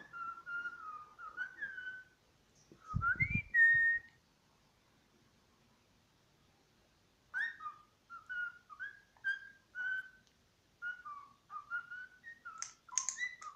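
Young Australian king parrot whistling its song: a string of short clear whistled notes, many sliding up or down, broken by a pause of a few seconds in the middle. About three seconds in, a dull bump sounds under a louder rising note.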